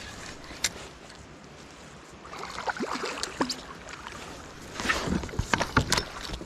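Water sloshing against a fishing kayak with scattered knocks and clicks, busiest and loudest about five seconds in.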